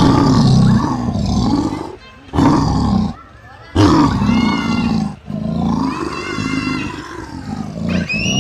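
Big cat roaring: four loud roars in a row, the last one the longest.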